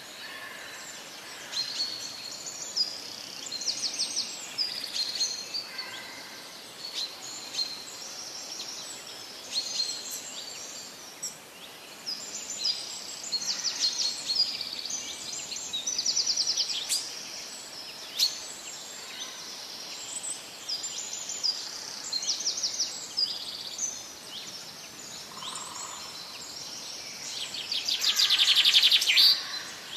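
Many birds chirping and trilling over a steady hiss, with a loud, rapid trill building near the end.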